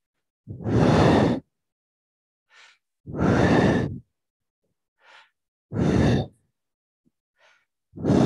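A man breathing deeply and audibly into a headset microphone: four loud, noisy breaths about two seconds apart, with faint shorter breaths between them.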